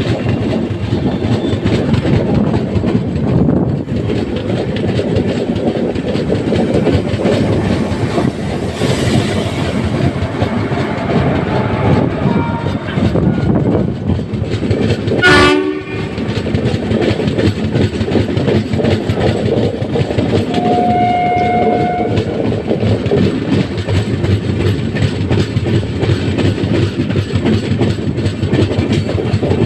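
Passenger train running at speed: a steady rumble of wheels on the rails with a clickety-clack beat, and one horn blast of about a second and a half, from the WAP-7 electric locomotive, about two-thirds of the way through. A short sharp burst sounds about halfway through.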